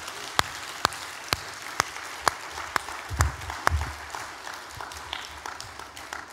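Congregation applauding, with sharp ticks about twice a second in the first three seconds and two dull low thumps a little after that.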